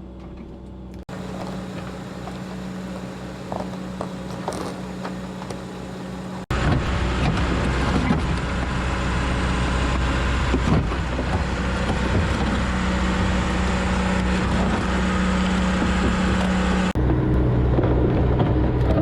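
Mack semi truck's diesel engine running steadily, in a series of cut shots; the engine gets much louder about six seconds in and changes character again near the end.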